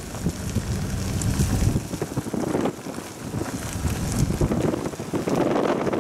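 A vehicle driving along a gravel road: a low rumble of tyres with small ticks of stones, and wind buffeting the microphone.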